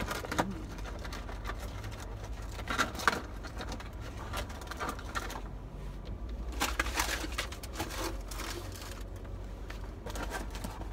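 Phone being handled and brushed by hand and clothing inside a vehicle cab, giving scattered soft knocks and rustles over a steady low hum.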